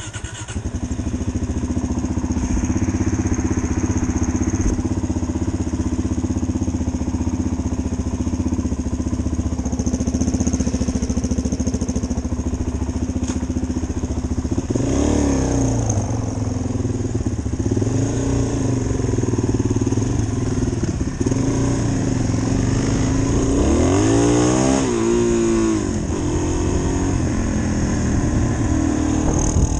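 Single-cylinder four-stroke dual-sport motorcycle engine running under way. Its pitch holds steady for the first half, then rises and falls repeatedly as the rider revs up and changes gear.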